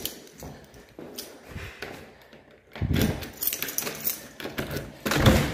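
Footsteps and handheld-phone handling noise as a person walks through a house, with light metallic jingling and scattered clicks, and two louder thumps, one about three seconds in and one near the end.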